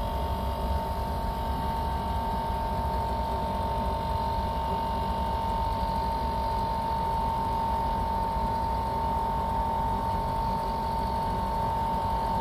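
Air-conditioning condensing unit running steadily while its R-410A system is charged with refrigerant, a constant mechanical hum with one steady high whine over it.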